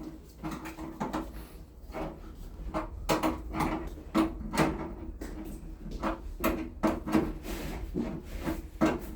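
Irregular knocks, clunks and rubbing from parts being handled during an air-conditioner installation, getting busier a few seconds in.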